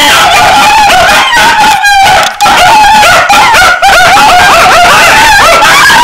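Small dogs yipping and whining in a rapid string of short, high calls, loud.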